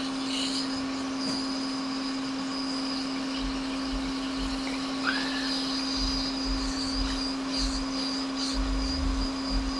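Hot air rework station blowing steadily with a constant hum while it heats the U5600 touch IC on an iPhone X logic board to free it; the solder has not yet let go.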